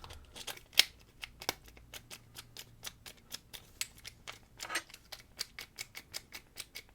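Light, quick clicking from a padlock's small metal parts being worked by hand while trying to turn the actuator, about four to five clicks a second with a few louder ones.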